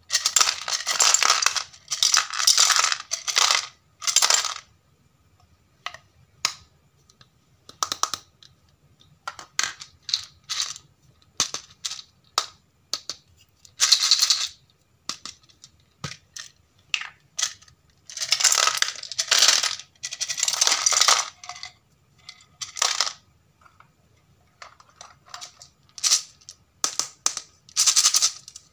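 Small hard pieces rattling inside plastic containers shaken by hand, a candy tube and then a plastic capsule ball, in repeated bursts of a second or two. In between, lighter clicks and clatter of small plastic pieces being handled.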